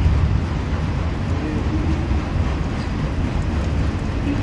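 Freight train of enclosed autorack cars rolling past, a steady low rumble of steel wheels on the rails.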